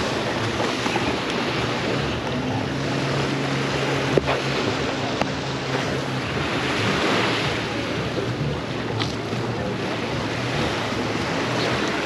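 Sea surf breaking and washing up on a sandy beach, with wind on the microphone. A low steady hum runs under it from about two to six seconds in, and there is a sharp knock about four seconds in.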